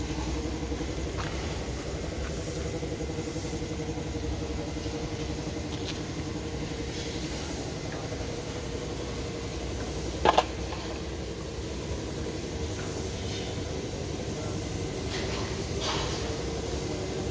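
A diesel engine idling steadily, a low even rumble with a fluttering hum. About ten seconds in there is one short, loud sharp sound.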